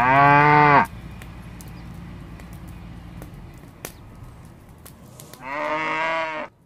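Cattle mooing twice: one call lasting just under a second at the start, another about five and a half seconds in. Each call falls in pitch as it ends.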